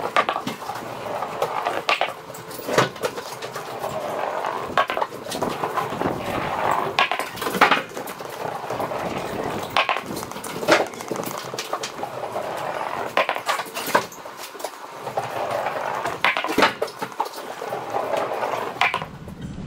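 Irregular knocks and clatters inside an empty box trailer: boots on the trailer floor and a large tractor tyre being moved about during unloading.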